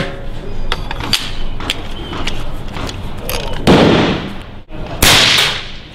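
Short metallic clicks from a suppressor-fitted AR-style rifle being handled, then two loud gunshots a little over a second apart, each trailing off briefly.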